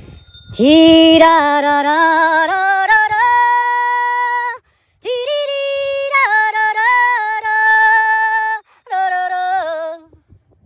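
A woman's voice singing an unaccompanied melody of held notes with vibrato, in three phrases with short breaks between them, the last one short.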